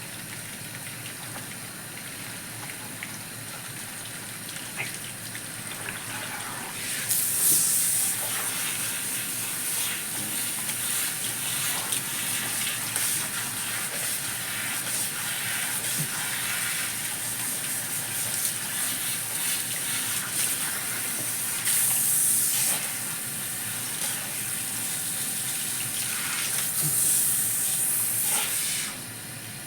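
Salon shower spray rinsing shampoo out of hair: a steady hiss of running water, which grows louder and brighter three times, about seven seconds in, past twenty seconds and near the end.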